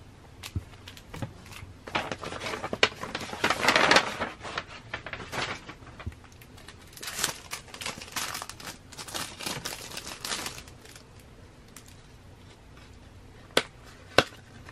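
Kraft paper mailer envelopes and packaging crinkling and rustling in bursts as they are handled and opened, dying down after about ten seconds. Two sharp clicks near the end.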